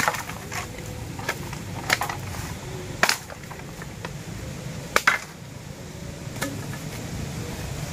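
A handful of separate sharp snaps and knocks, the loudest about three and five seconds in, from a dry branch being handled and struck on dry leaf litter.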